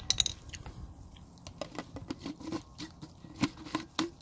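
Paper towel crinkling as it is handled and folded up: a run of irregular small crackles and clicks.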